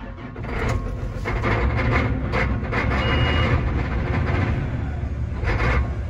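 Combine's diesel engine cold-starting and coming up to a steady, loud run. A short high beep sounds about three seconds in.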